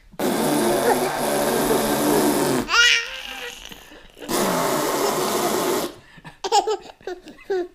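A young child blowing two long, buzzy raspberry noises with a high rising squeal between them, then breaking into short bursts of giggling babble near the end.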